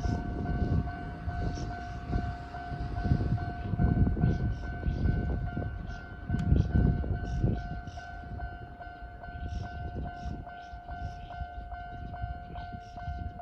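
Japanese electronic level-crossing warning bell ringing in quick, even repeated strokes. This is the older standard bell sound in its fast type. Low rumbling comes and goes underneath.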